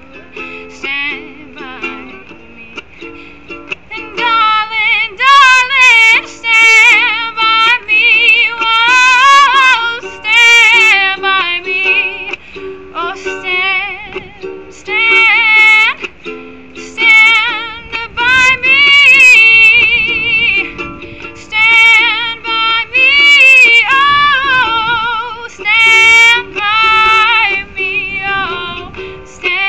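Ukulele strummed steadily in chords. From about four seconds in, a woman's voice sings a melody over it with a wide vibrato.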